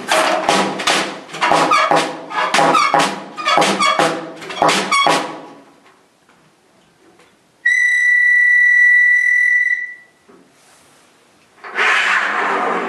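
Free-improvised alto saxophone and snare drum. A dense run of rapid struck and scraped sounds lasts about five seconds and then stops. After a short pause comes one held, high, whistle-like note of about two seconds, and near the end a brief hissing burst.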